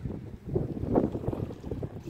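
Wind buffeting the microphone as a low, uneven rumble.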